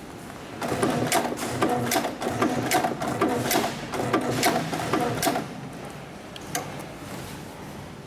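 Hightex 7700P double-needle decorative stitching machine sewing leather slowly, with a regular knock of roughly three stitches a second. It starts under a second in and stops about five seconds in, followed by a single click.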